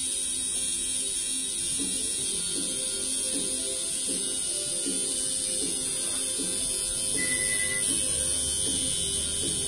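Coil tattoo machine buzzing steadily as the needle works ink into skin. Music with changing notes plays underneath.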